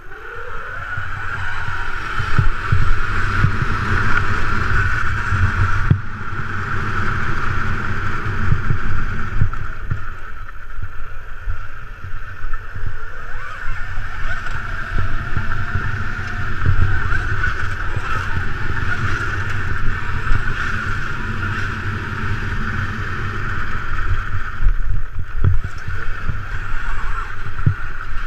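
Electric dirt bike (a converted Honda CRF250R) running along rough grass, its motor drive giving a steady high whine that rises as it pulls away at the start. Heavy low wind buffeting and knocks from the bumpy ground run underneath.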